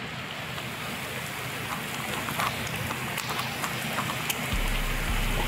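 Heavy rain pouring down, picked up by a police body-worn camera, with scattered light clicks. A low rumble comes in near the end.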